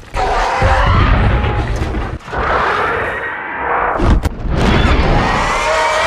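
Rodan's film creature roar: three harsh, raspy screeches in a row over a deep rumble, with a couple of sharp cracks between the second and third.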